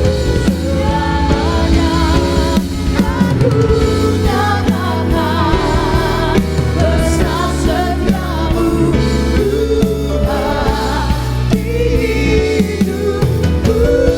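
Live worship band playing with drums and bass while singers sing a slow song, voices wavering with vibrato.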